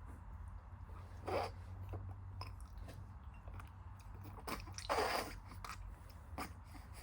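A baby's eating and mouth sounds: small smacks and clicks, with two short breathy huffs, one about a second in and a louder one around five seconds in, over a steady low hum.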